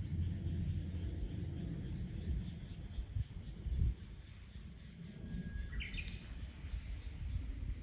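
An insect chirping in a high, even pulse about three times a second, stopping near the end, over a low rumble; a short call rising in pitch comes just before the chirping stops.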